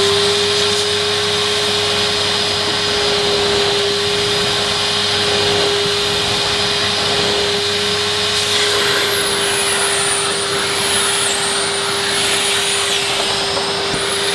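Numatic George cylinder vacuum's 1000-watt motor running steadily as its floor tool is pushed back and forth over deep Saxony plush carpet, which is hard work for it. A high whistle wavers up and down from about halfway through.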